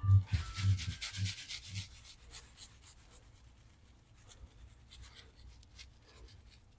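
Garlic salt shaken from a shaker onto chicken tenders: rhythmic shakes about twice a second with a hiss of falling grains for the first two seconds, then faint scattered taps and rustles.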